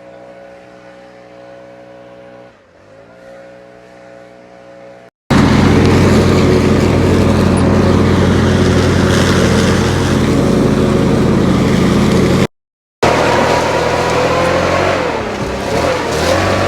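Engine running in several short clips joined by abrupt cuts. It is quieter at first, with its pitch dipping and recovering once. It then runs loud and steady for several seconds, and near the end its pitch rises and falls.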